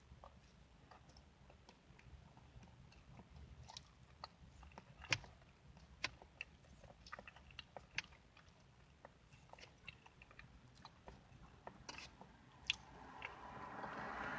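A person chewing and biting a fruit sandwich: scattered small wet mouth clicks and soft crunches, with a soft rushing noise building near the end.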